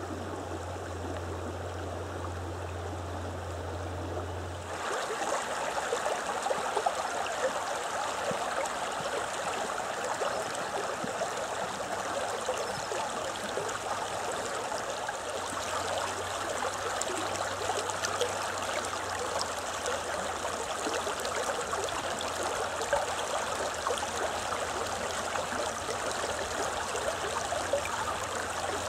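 Shallow mountain river running and burbling over stones and gravel, a steady rush of water. About five seconds in it turns suddenly louder and brighter, and a low steady hum that lay under the water before then drops away.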